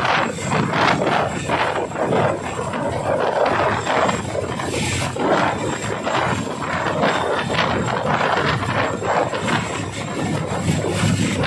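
Boeing CH-47 Chinook tandem-rotor helicopter hovering low and close, its twin rotors and turboshaft engines making a loud, steady noise.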